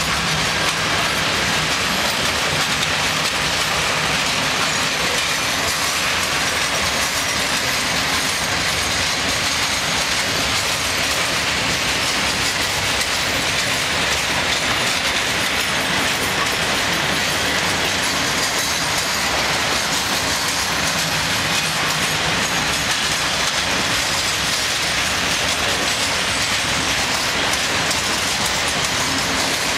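Freight train of loaded rail tank wagons rolling slowly past, its wheels running steadily over the rails with no break in the sound.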